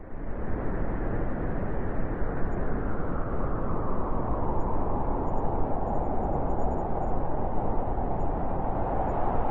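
Blizzard wind blowing steadily, a dense rushing noise that cuts in suddenly at the very start.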